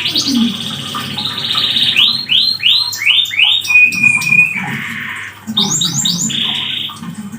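Domestic canary singing a fast, unbroken song: rolling trills, a run of quick falling notes, a held steady whistle a little past the middle, then a buzzy phrase and more trills.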